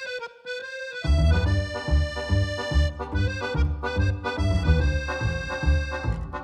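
Instrumental background music: a reedy melody line alone at first, joined about a second in by a steady low beat about twice a second.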